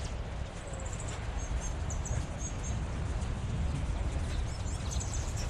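Small birds chirping in short, high, quick runs of notes, over a steady low outdoor rumble.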